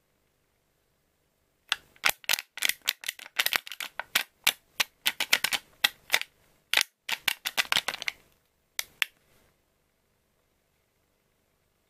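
Foil lid of a plastic dessert cup being peeled back: a dense run of sharp, irregular crackles that starts about two seconds in and stops about two seconds before the end.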